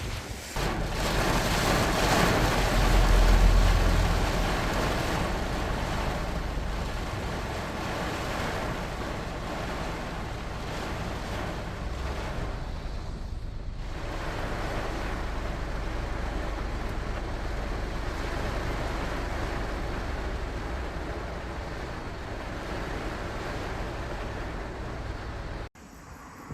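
Car driving in heavy typhoon rain, recorded by a dashcam inside the car: a steady rush of rain and tyres on a wet road. It is loudest for a few seconds near the start, the hiss drops briefly about halfway, and it cuts off abruptly near the end.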